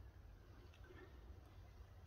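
Near silence: only a faint, low background rumble.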